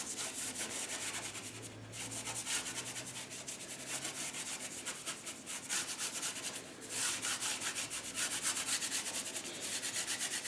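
Large paintbrush scrubbing acrylic paint onto the painting surface in rapid back-and-forth strokes, several a second, blending a smooth gradient. The brushing pauses briefly twice.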